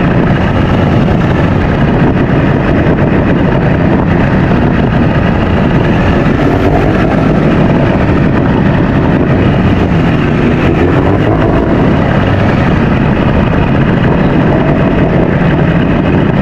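Outboard motor of a small open fishing boat running steadily as the boat moves in through shallow water, with water churning along the hull.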